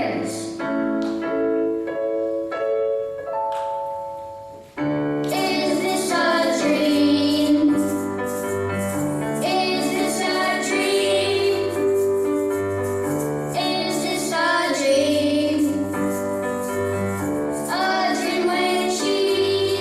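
Live band playing an original pop song with a young singer. It opens on held keyboard chords, and about five seconds in the full band and the vocals come in together and carry on.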